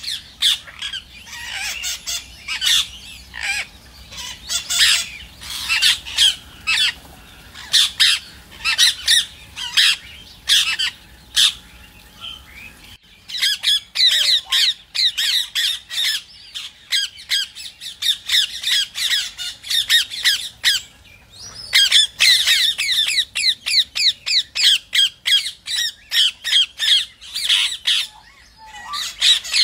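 Rose-ringed parakeets calling in short, shrill, high calls repeated several times a second. The calls come in dense runs, with brief lulls about 13 seconds in and again near 21 seconds.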